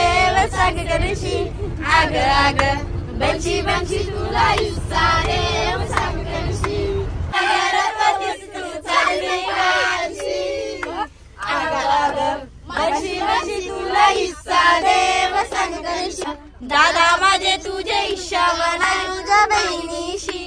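Several voices singing a song together, as in a song-chain game of antakshari, over the low rumble of a moving vehicle. The rumble cuts off suddenly about seven seconds in, leaving the singing alone.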